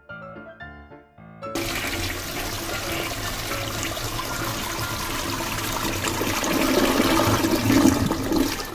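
Toilet-flush sound from a toy potty-toilet: a rush of water that starts suddenly about a second and a half in and grows louder toward the end. Children's background music plays before it.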